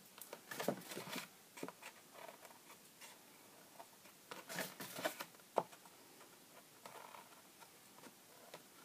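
Small scissors snipping into cardstock, a scatter of short, faint snips with the card rustling as it is handled and turned.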